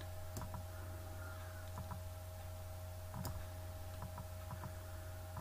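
Faint, irregular clicks of a computer mouse, over a steady low electrical hum.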